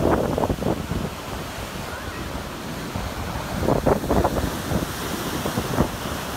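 Heavy surf breaking and washing up the beach in strong wind, with gusts buffeting the microphone, strongest just after the start and again about four seconds in.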